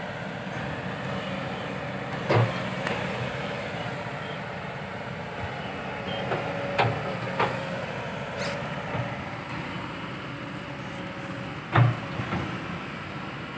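Kobelco SK200-8 Super XM hydraulic excavator's diesel engine running steadily while it digs, with several sharp knocks from the working bucket and arm, the loudest near the end.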